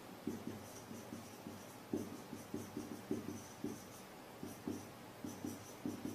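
Marker pen writing on a whiteboard: a quick, irregular string of short, faint strokes as characters are written.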